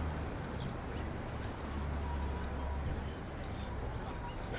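City street ambience from a moving bicycle: a steady low rumble of traffic with a faint, steady high-pitched whine over it.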